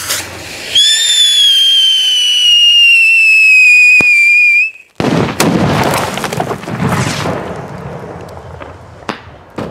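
Whistling ground firework going off: a short burst, then a loud, slowly falling whistle for about four seconds that stops abruptly. A rushing, crackling noise follows and fades, and a single sharp bang comes near the end.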